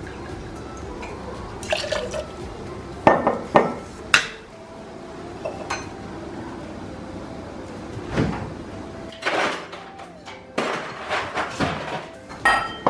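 Liquid poured into a stainless-steel cocktail shaker, followed by sharp metallic clinks as the jigger and shaker tins are handled, and a run of clattering knocks near the end.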